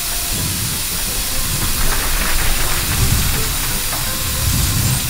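Water spraying from a miniature fire-truck nozzle in a steady hiss.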